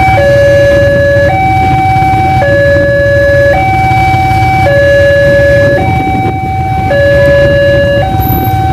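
Railway level-crossing warning alarm sounding, a steady two-note signal that switches between a lower and a higher tone about once a second, warning that a train is approaching. Under it is the low rumble of motorcycle engines idling at the barrier.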